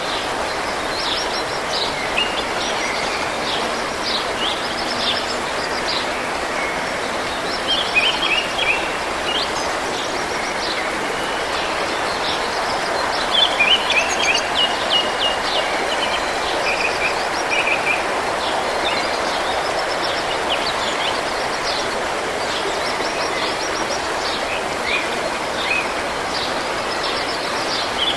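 Forest stream running steadily, with songbirds singing over it in short repeated chirps and trills throughout.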